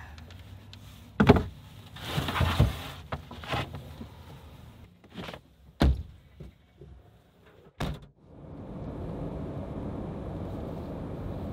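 Long wooden boards being loaded into the back of a hatchback: several knocks and a scraping slide as they go in over the rear seats, then a heavy thunk near eight seconds, like the tailgate shutting. After that comes the steady road noise of the car driving, heard from inside the cabin.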